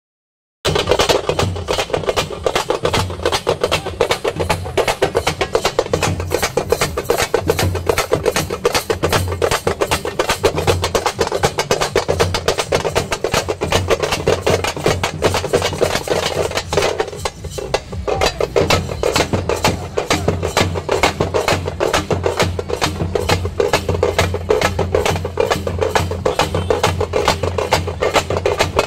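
A group of parai frame drums beaten with sticks in a fast, driving rhythm of sharp, rapid strokes. The drumming begins about half a second in after a brief silence and keeps on without a break.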